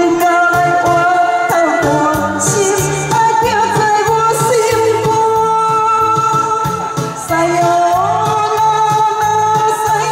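A woman singing a pop song live over an amplified backing track with a steady drum beat, the melody moving in long held notes.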